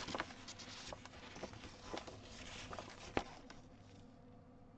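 Tearproof paper pages of a cross stitch chart booklet rustling and crinkling as they are handled and bent back, with one sharper click about three seconds in before it goes quieter.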